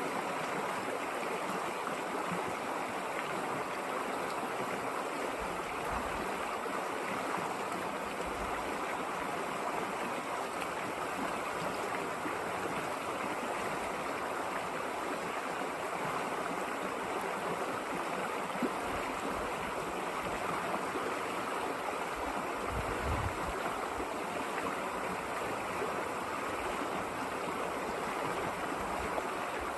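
River water flowing: a steady, even rush of water over stones.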